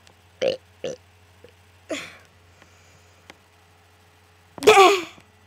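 A young girl burping several times: short burps about half a second, one second and two seconds in, then a longer, loudest burp falling in pitch near the end.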